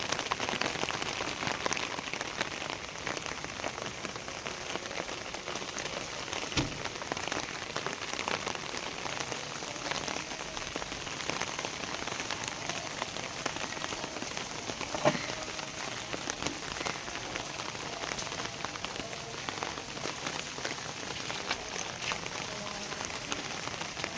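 Steady rain falling, with a constant patter of drops and many small ticks. Two louder knocks stand out, one about six and a half seconds in and one about fifteen seconds in.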